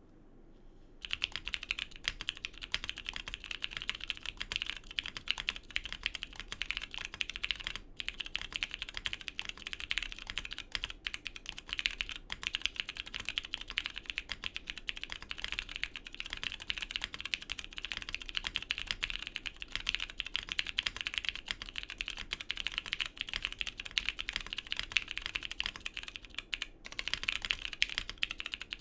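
Steady, fast typing on a Neo80 mechanical keyboard with lubed and filmed Cherry MX Purple switches, a POM plate, O-ring mounting, no foam and PBT keycaps: a dense run of keystroke clacks. It starts about a second in, and there is a short pause near the end.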